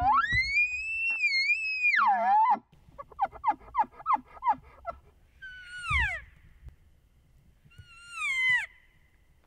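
Bull elk bugling: a long high whistle that rises and holds for about two seconds, breaks into a run of quick chuckles at about four a second, then two shorter falling squeals.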